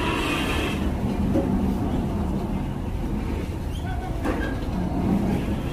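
Heavy diesel engine running steadily with a low rumble, with a hiss during the first second.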